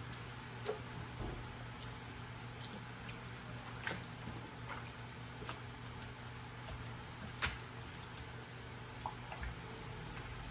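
Quiet handling of water and wet fabric in a basin: scattered soft drips, squishes and small clicks over a steady low hum.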